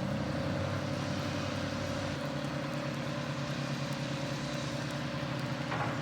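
Heavy machine's engine running at a steady, even speed, a constant droning hum.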